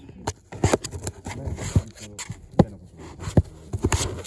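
A black Labrador puppy moving about inside a cardboard box, its claws and body scratching and bumping against the cardboard: a string of irregular knocks and scrapes.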